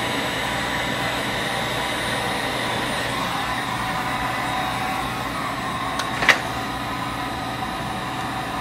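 Electric heat gun running steadily, its fan blowing hot air to soften a PVC window jamb, with a brief click about six seconds in.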